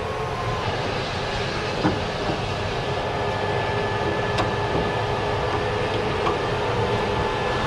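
Freight train of railway flatcars rolling slowly by, a steady rumble with thin wheel-squeal tones held above it. Two sharp clanks about two and four seconds in.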